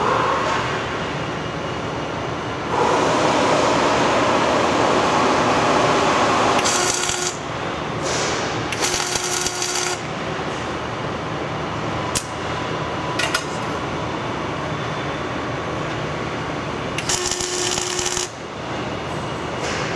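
Electric arc welding of a steel correction weight onto a forestry mulcher's rotor drum, to balance the rotor. It comes in several bursts of arc, the loudest stretch from about three to six and a half seconds in, then shorter bursts around seven, nine and seventeen seconds in.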